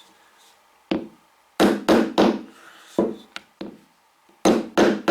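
A chisel set in a scribed knife line being struck with a mallet to chop the line for a hinge mortise in wood: about eight sharp knocks, some in quick runs of two or three.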